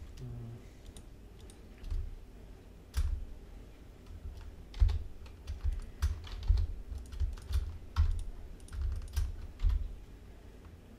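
Computer keyboard keys and mouse buttons clicking in an irregular run of taps, with dull knocks carried through the desk, starting about two seconds in.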